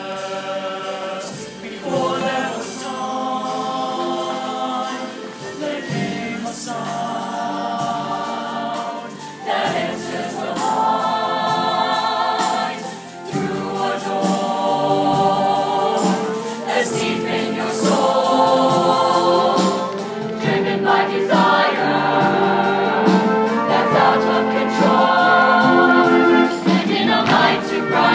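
Mixed-voice show choir singing a song together, male and female voices.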